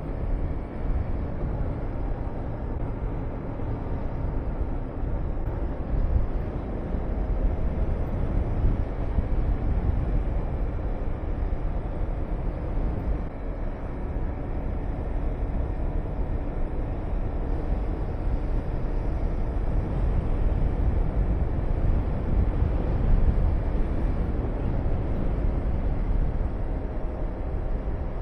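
Honda VTR250 V-twin engine running steadily under way, with heavy wind rumble on the microphone from riding speed.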